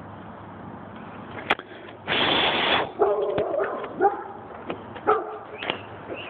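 Short animal calls with a clear pitch, repeated about once a second, starting about three seconds in. They come after a sharp click and a louder rustling scrape of under a second.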